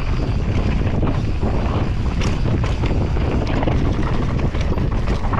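Wind buffeting the microphone and mountain-bike tyres rolling fast over dirt, with scattered clicks and knocks from the bike over bumps.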